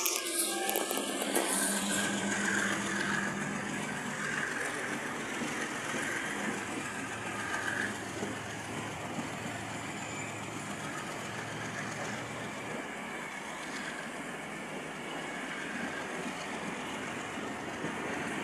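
Pakistan Railways passenger coaches rolling past along the platform: a steady rolling noise of wheels on rails.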